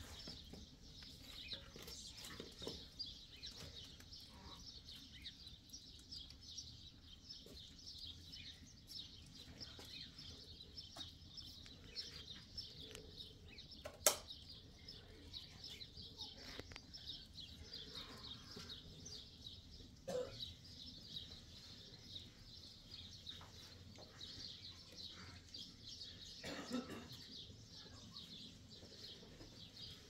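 Birds chirping continuously in a dense chorus of short, high calls, with one sharp click about 14 seconds in.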